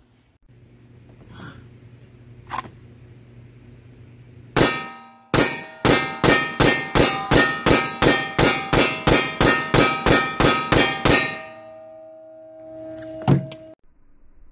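One sharp metallic clang, then a fast, even run of about twenty ringing metallic clangs, about three a second for some six seconds, each one sharp at the start and ringing on briefly. One more clang comes near the end.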